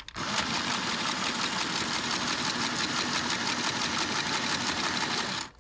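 Small portable electric sewing machine running and stitching without a break, with a fast, even stitching rhythm, stopping just before the end.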